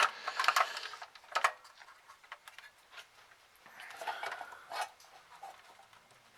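Hard plastic and metal parts being handled: a few sharp clicks and knocks, with a short stretch of scraping and clicking about four seconds in.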